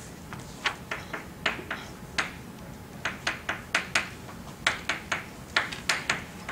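Chalk writing on a blackboard: an irregular run of sharp taps and short scratches, one for each stroke, starting about half a second in.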